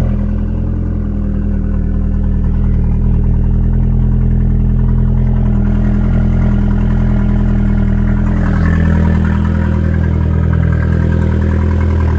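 2002 Audi A4 B6's 1.8-litre turbocharged four-cylinder running at a steady cold-start idle, just after being started with a freshly fitted used turbocharger.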